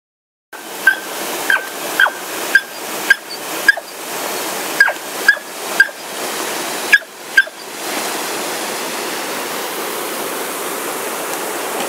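Smooth fox terrier barking sharply and excitedly at the water, about eleven quick barks, over the steady rush of a waterfall and stream. The barking stops about seven and a half seconds in, leaving only the water.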